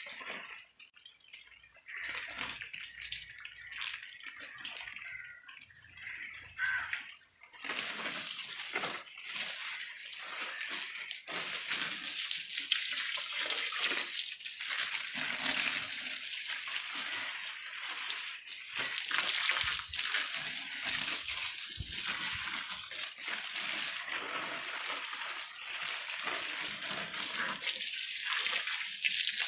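Water spraying and splashing onto leaves and ground, a steady hiss that comes in patches at first and grows fuller and steadier about seven seconds in.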